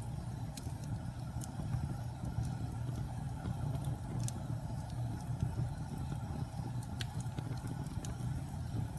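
Wood fire burning with a steady low rumble, broken by scattered sharp crackles, about one every second or two.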